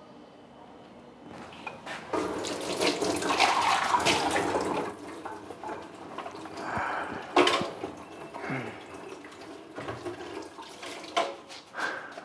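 Water running and splashing, loudest for a few seconds starting about a second in, then dropping to a lower noise broken by a few sharp knocks.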